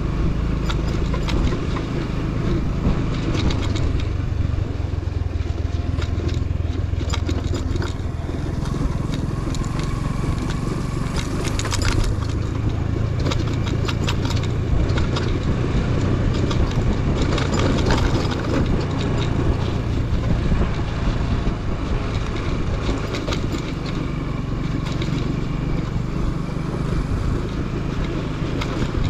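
Motorcycle engine running steadily on the move, with many small clicks and rattles over it.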